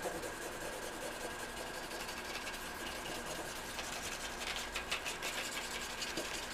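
A red marker rubbing and scratching back and forth over a paper plate as it is coloured in, in quick, faint strokes.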